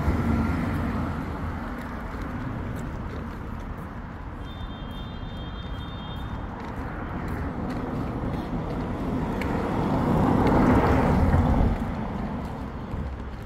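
A car drives past close by and fades away. Then another vehicle's engine and tyre noise swells up as it passes, loudest about eleven seconds in, and drops off.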